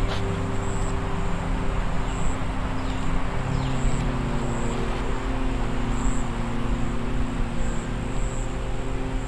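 A steady low synthesized drone of several held tones, which shifts to a lower chord about three and a half seconds in. A few short, high, falling chirps sound faintly over it.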